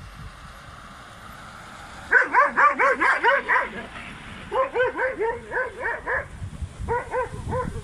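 A dog barking in quick, high-pitched yelps, about five a second, in three runs with short pauses between them, starting about two seconds in.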